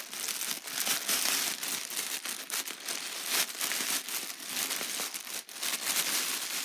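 Packaging being handled and opened by hand: continuous crinkling and rustling with many irregular crackles.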